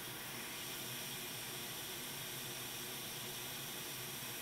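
Steady, even hiss with no distinct clicks or knocks.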